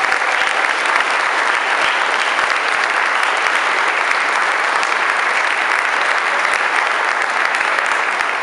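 Audience giving a round of applause: dense, steady clapping from many hands.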